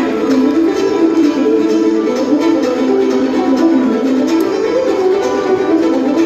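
Live bluegrass instrumental: fiddles carrying a quick melody over plucked string backing, played through a stage sound system.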